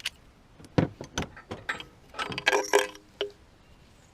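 Metal hand tools clinking and knocking in a run of irregular sharp clicks, with a brief clattering cluster about two and a half seconds in.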